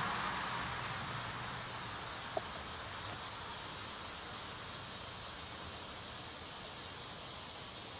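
A fog machine's hiss and low pump hum fade out over the first couple of seconds. That leaves a steady, high-pitched chirring of night insects, with a single short tick about two and a half seconds in.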